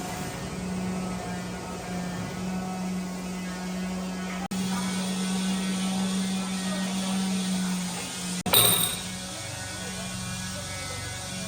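A steady low electrical hum, broken by a short loud knock or clatter about eight and a half seconds in.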